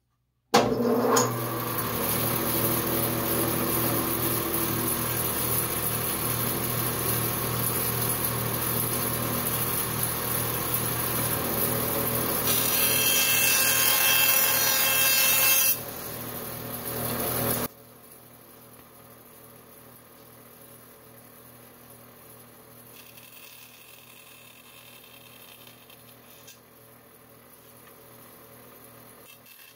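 Bandsaw running and cutting a thin wooden sheet, fitted with a blade much heavier than the job needs: a steady loud sawing noise. It drops sharply in two steps near the 16 and 18 second marks to a much fainter steady sound for the rest.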